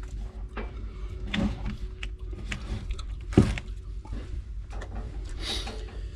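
Scattered clicks and knocks over a low steady hum, with one louder knock about three and a half seconds in.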